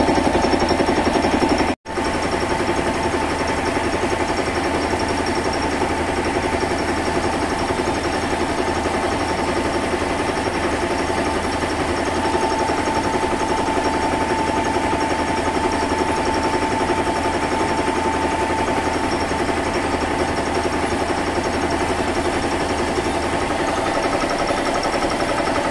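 A 1 HP Manjeet single-cylinder piston air compressor running steadily, pumping air into its tank. The sound cuts out for an instant about two seconds in.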